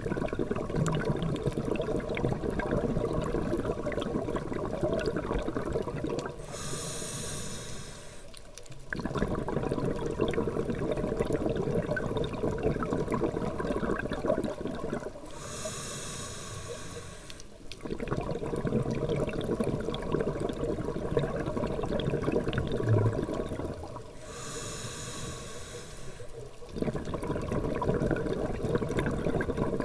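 Scuba regulator breathing underwater: long bubbling exhalations, each broken by a shorter hissing inhalation, in three slow breaths roughly nine seconds apart.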